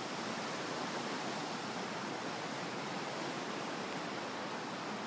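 Steady rushing of a flooded creek running high and fast.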